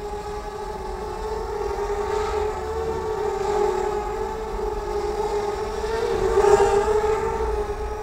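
Fairy Air 33 Camero mini quadcopter hovering, its four propellers giving a steady high whine that wavers slightly in pitch and swells louder about six and a half seconds in.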